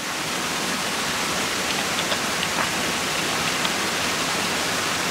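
Steady rush of running water, an even hiss with a few faint small splashes.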